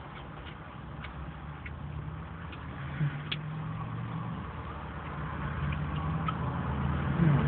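Car engine idling with a steady low hum that grows louder near the end, with faint small clicks of someone chewing food.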